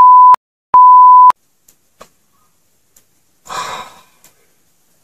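Two censor bleeps, loud steady high-pitched beeps of about half a second each, blanking out swear words. A short hiss of noise follows about three and a half seconds in.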